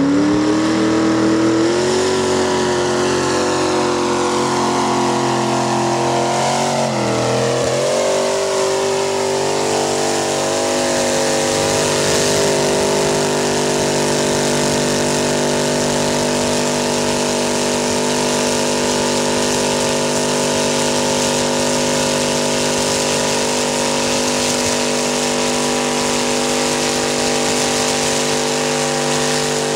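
Mud-bog truck's engine revving hard as it churns through a deep mud pit: the pitch climbs over the first several seconds, dips briefly, then holds steady at high revs.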